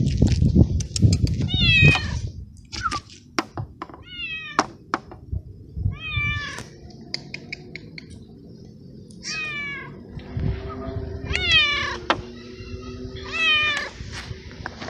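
Young stray tabby cat meowing loudly and repeatedly, about six meows that each fall in pitch, with sharp clicks and knocks between them.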